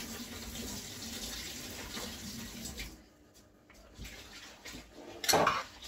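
Hot soup being ladled from a pot into a bowl: a steady watery splashing rush that stops about three seconds in, then one brief loud knock near the end.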